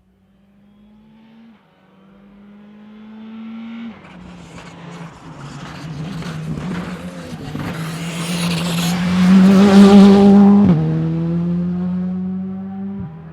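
Rally car approaching and passing at full throttle, its engine note climbing and dropping sharply at each gear change, about four times. It grows from faint to loudest just before the last few seconds, then pulls away still accelerating.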